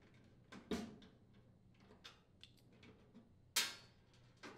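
Hand screwdriver unthreading sheet-metal screws from a laundry center's cabinet top: faint ticking as it turns, with two sharper clicks, one about a second in and one near the end.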